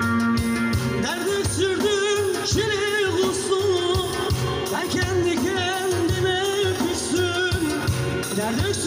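Turkish folk song played by a band. From about a second in, an ornamented lead melody with strongly wavering pitch runs over the accompaniment.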